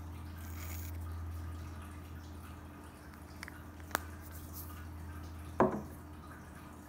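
Aerosol can of foam hissing briefly as it squirts out a dollop, followed by a sharp click about four seconds in and a louder short knock near the end, over a low steady hum.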